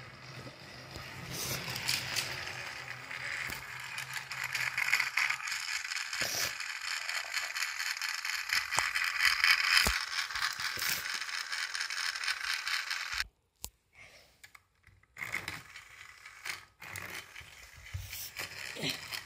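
Plastic toy trains and track being handled, with continuous scraping and rattling that cuts off suddenly about two-thirds of the way through, followed by a few faint knocks.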